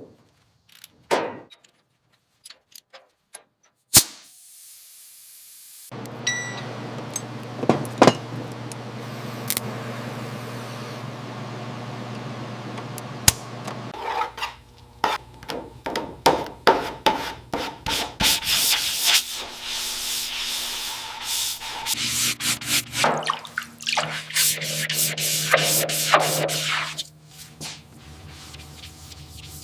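A run of short workshop clips of restoration work on a car: scattered knocks first, then a power tool's motor running with a steady hum, then repeated rapid sanding and scraping strokes.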